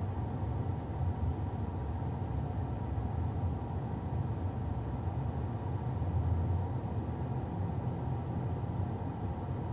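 A steady low rumble that stays even throughout, with no distinct events.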